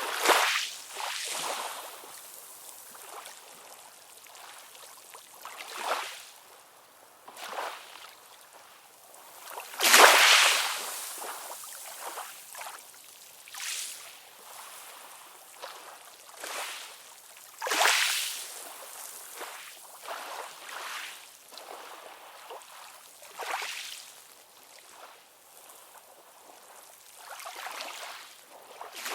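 Synthetic ocean-wave sound: a run of short splashing surges of surf every few seconds, the biggest about ten and eighteen seconds in, hissy with hardly any low rumble.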